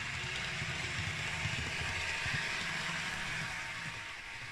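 Model diesel multiple unit running on the layout's track, a steady whirr and rumble from its motor and wheels on the rails that grows a little louder as it passes close and eases off near the end.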